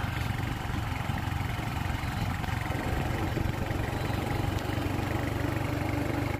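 Vehicle engine running steadily on the move: a low, even hum with road noise.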